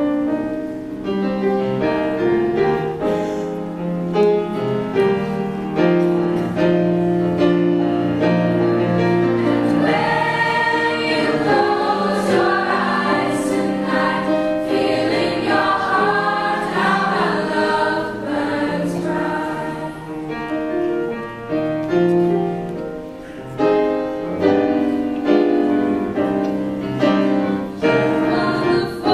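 A school choir of boys' and girls' voices singing a slow song together with piano accompaniment, the higher voices swelling with wavering held notes in the middle.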